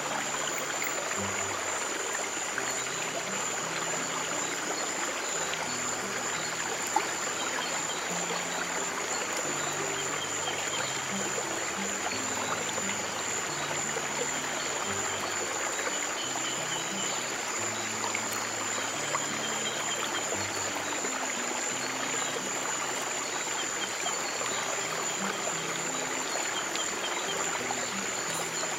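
Flowing stream water with soft, low piano notes changing slowly beneath it. A steady high-pitched tone sits above the water.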